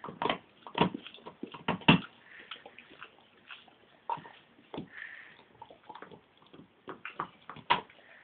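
Greater Swiss Mountain Dog gnawing on an elk antler: irregular clicks and crunches of teeth on antler, densest in the first two seconds and again just before the end, with scattered lighter ticks between.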